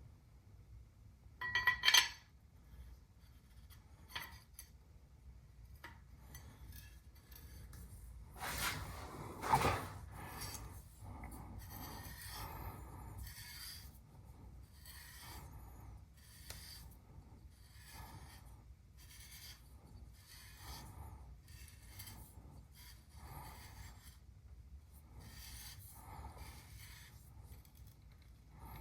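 Metal rifle parts being handled and worked by hand: a sharp ringing clink about two seconds in, a scrape near the middle, then a long run of soft, even rubbing strokes about once a second.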